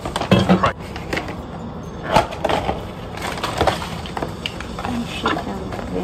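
Paper takeaway bag crinkling and rustling in irregular crackles as hands dig into it and pull food and a drink can out, with a few sharper rustles.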